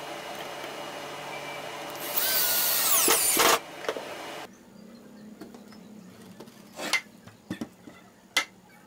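Cordless drill driver running, driving a screw into the pine frame of a folding stool, louder with a falling whine about two seconds in and stopping shortly after three and a half seconds. A few light knocks of wood being handled follow near the end.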